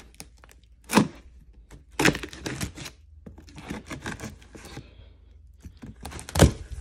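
A knife slicing through clear packing tape along the seams of a cardboard box, with tape tearing and scraping, broken by three sharp knocks, the loudest near the end.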